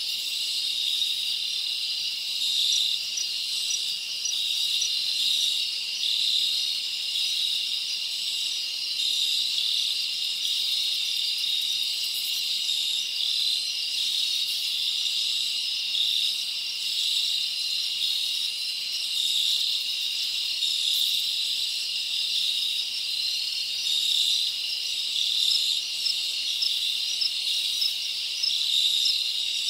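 Steady chorus of chirping insects: a continuous high-pitched trill that hardly changes.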